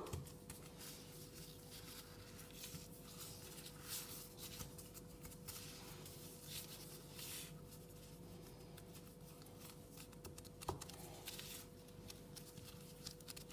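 Faint rustling and scraping of gloved fingers pinching and breaking off excess shortcrust dough around the rim of a tart pan, over a faint steady hum. One light click late on.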